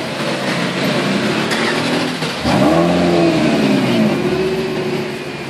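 Supercar engines revving as they pull away. About halfway through comes a hard, loud rev from the car right beside the camera: its pitch rises quickly, then slides down as it moves off.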